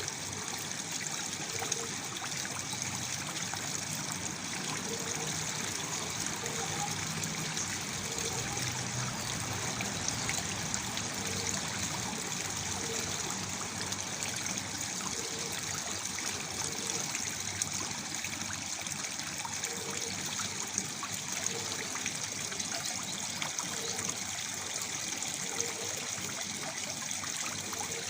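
Waterfall water falling and trickling steadily, an even splashing rush with no letup.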